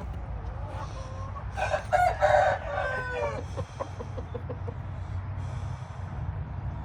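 A rooster crowing once, starting about a second in, its call ending in a falling drawn-out note, followed by a quick series of short, faint clucks. A steady low rumble runs underneath.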